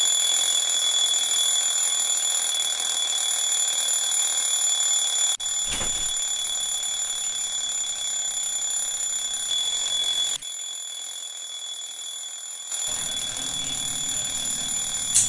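Phone alarm ringing: a steady high-pitched tone that goes on without a break.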